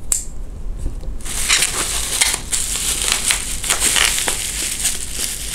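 Bubble wrap crinkling and crackling as it is cut open and pulled apart by hand. A single sharp click comes right at the start; from about a second in, the crackling is dense and continuous.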